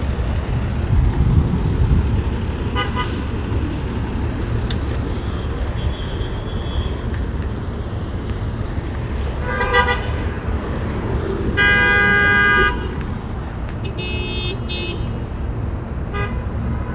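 City street traffic: a steady rumble of vehicle engines, with a vehicle horn sounding for about a second past the middle, the loudest sound, and a few shorter toots and high tones.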